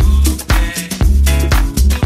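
Funky disco-house dance music with a steady heavy kick drum about two beats a second.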